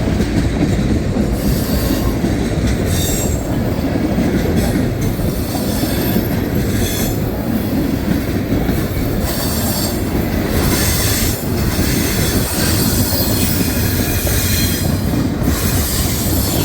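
Freight train rolling past at close range: a steady heavy rumble of steel wheels on rail, with high wheel squeal coming and going every second or two as the cars work through the curve.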